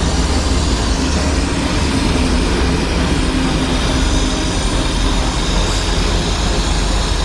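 Steady, loud mechanical rumble with a hiss over it, unchanging throughout.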